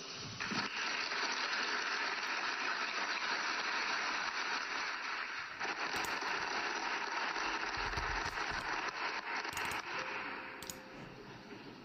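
Audience applauding steadily after a speech, easing off near the end.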